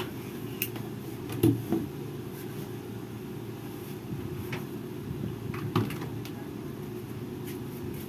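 Steady hum of a room air conditioner, with a few light clicks and knocks scattered through it, the loudest about a second and a half in and again near six seconds.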